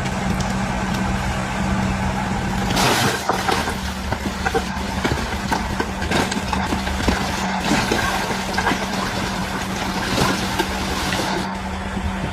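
DH17C3 bulldozer's diesel engine running steadily under work. Several louder noisy surges come and go, about three seconds in, around seven to eight seconds, and again near ten to eleven seconds.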